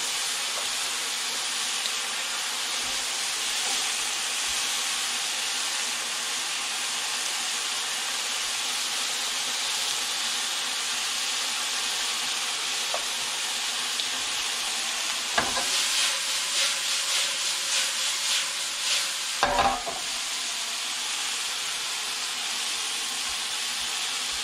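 Beef pieces sizzling steadily in a frying pan. About fifteen seconds in a utensil knocks against the pan, works the meat with a few seconds of quick, regular strokes, and knocks again.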